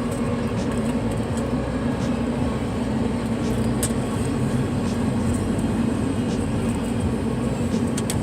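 Train passing: a steady rumble with a few faint clicks.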